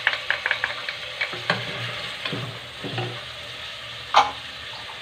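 Onion, gueddid (dried salted meat) and tomato frying in oil in a stainless pressure-cooker pot, with a steady sizzle. A wooden spoon stirs and clicks against the pot, with one louder knock a little after four seconds in.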